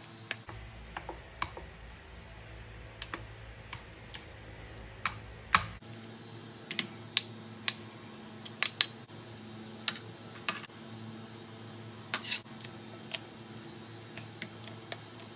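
A spoon clinking and tapping against a glass bowl while mixing a thick spread, in irregular sharp clicks, with a few louder taps around the middle.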